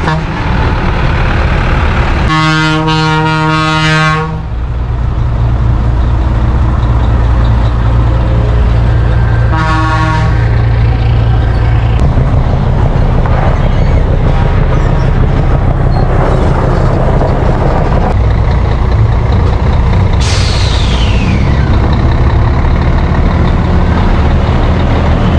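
Heavy truck diesel engine running steadily, with a truck air horn blown for about two seconds early on and again briefly around ten seconds in.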